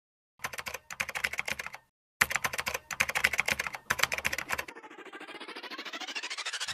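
Computer-keyboard typing sound effect: two runs of rapid key clicks with a short pause between. A rising swept tone then swells toward the end.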